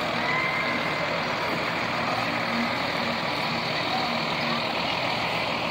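Fire department ladder truck's diesel engine running steadily as the truck rolls past close by.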